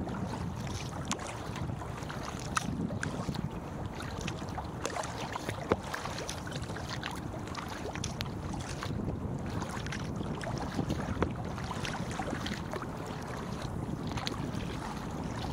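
Kayak being paddled on choppy water: water lapping and splashing against the hull with scattered small splashes and drips from the paddle blades, two of them louder about six and eleven seconds in. Wind rumbles steadily on the microphone underneath.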